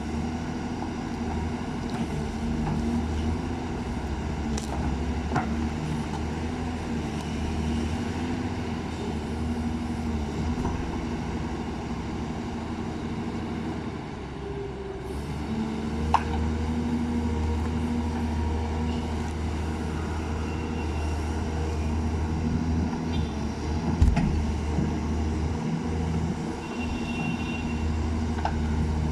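Backhoe's diesel engine running steadily under work, dropping off briefly about halfway through and then picking up again, with a few sharp knocks as the bucket strikes and breaks up tree roots.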